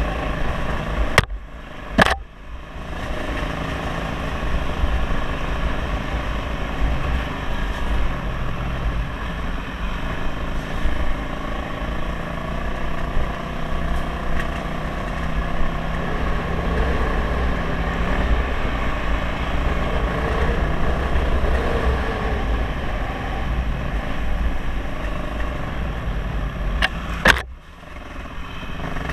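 Dirt bike engine running steadily at trail-riding speed, heard close up from the bike. Sharp clicks with brief dropouts in the sound twice: about a second in and near the end.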